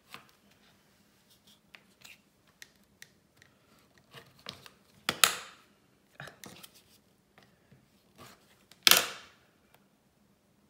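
Cotton fabric being cut and worked by hand on a rotary cutting mat, with a dull rotary-cutter blade that is not slicing cleanly through. Scattered light clicks and taps, and two short, louder strokes about five and nine seconds in.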